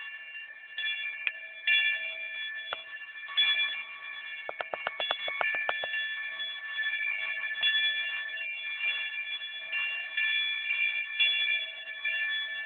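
Cowbells on grazing cows ringing, clanging on and off as the cows move their heads, with a quick rattling run of about ten strikes around five seconds in.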